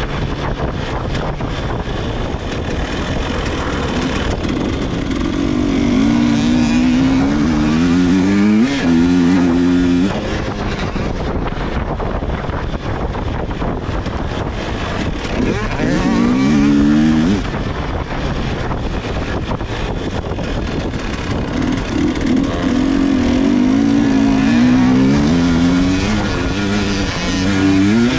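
300cc two-stroke enduro motorcycle engine under way. It revs up hard several times, its pitch climbing and dropping back as it accelerates through the gears, and runs more steadily in between.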